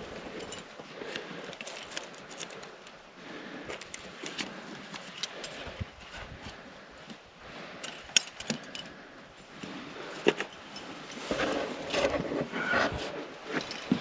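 Metal climbing gear, carabiners and cams on the harness rack, jingling and clicking as the climber moves up a granite crack, over rustling and scraping against the rock. The movement gets louder and busier about two-thirds of the way through.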